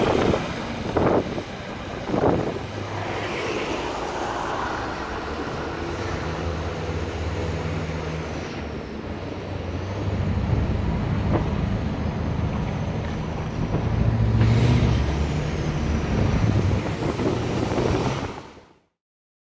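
Terex AC 1000-9 all-terrain crane's diesel engine running as the heavy crane drives, its note rising and falling, with two brief sharp sounds about one and two seconds in. The engine grows louder about two-thirds of the way through, then the sound cuts off suddenly near the end.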